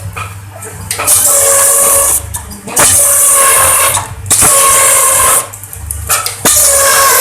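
Bamboo skewer machine with a slicer and two planers cutting bamboo, in about four loud passes of roughly a second each with short gaps between, each pass a hissing rasp over a steady machine whine.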